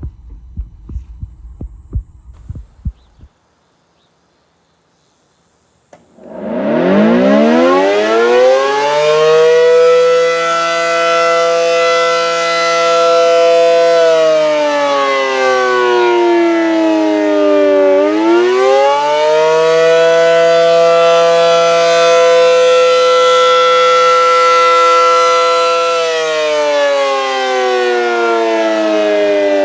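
ACA Allertor 125 outdoor warning siren sounding the attack signal, starting about six seconds in after a few low thumps and a brief quiet. Its pitch climbs, holds steady for several seconds, falls, then climbs and holds again before another fall, and is rising once more at the end.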